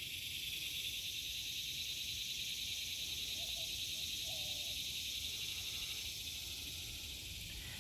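A steady, high-pitched chirring chorus of insects, crickets, over a faint low background rumble.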